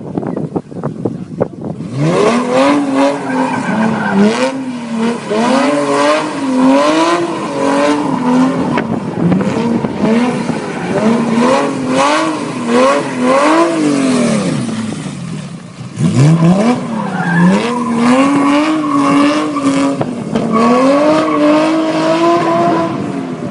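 BMW E21 engine revving hard, its note climbing and falling over and over. It starts about two seconds in, drops away briefly past the middle, then climbs again.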